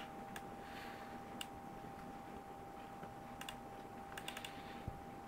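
Scattered sharp clicks of computer controls: a single click about half a second in, another a second later, a pair a little past three seconds in and a quick run of four or five near four seconds. A faint steady whine runs underneath.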